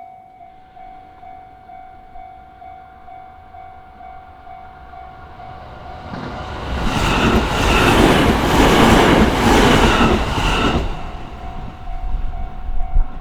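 Japanese railway level-crossing bell ringing with a steady, repeating ding while a train passes over the crossing. The train is loud for about five seconds in the middle and drowns out the bell, which is heard again after the train has gone.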